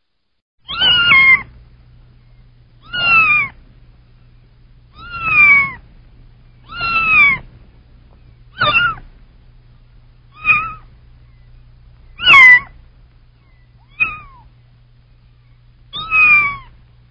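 Kitten meowing repeatedly: nine short, high calls, most falling in pitch, about every two seconds, over a faint low hum.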